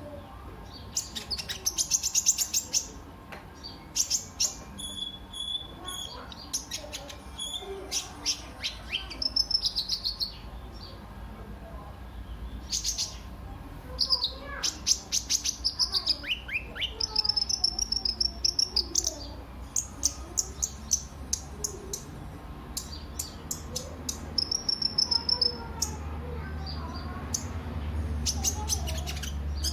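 A sunbird of the kind sold as 'kolibri ninja' singing: short phrases of rapid, high-pitched chips and trills with brief pauses between them. A low background rumble grows louder near the end.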